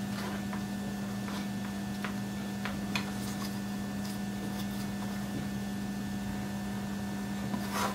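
Faint, soft rustles and light clicks of rolled modelling paste being peeled off a plastic tappit cutter and the cutter shifting on a cutting mat, over a steady low hum.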